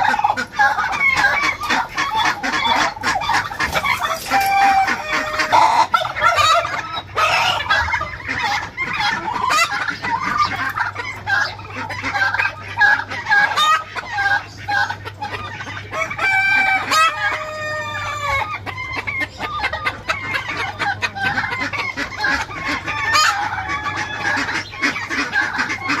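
A mixed flock of chickens and turkeys calling at once: constant clucking and squawking, with roosters crowing. About two-thirds of the way through a longer, rapid rattling call stands out above the rest.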